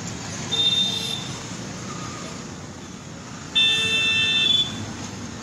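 Car horn honking twice over steady traffic noise: a short toot about half a second in, then a longer, louder honk about three and a half seconds in.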